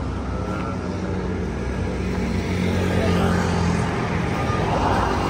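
A motor vehicle engine running steadily, growing a little louder about halfway through.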